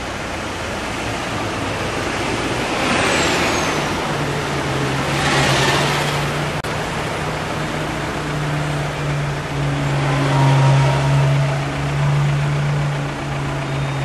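Road traffic: cars pass close by, their tyre and engine noise swelling and fading twice in the first half. From about four seconds in, a truck engine runs with a steady low drone under the traffic.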